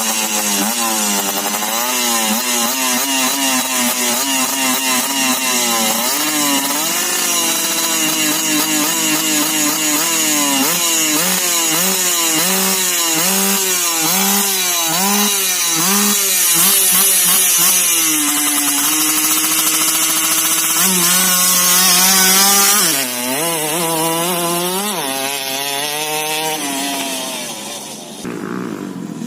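Honda Win motorcycle with a 130cc Yamaha engine being revved over and over, its pitch climbing and falling with each twist of the throttle, held steady in places, and dropping a second or so before the end.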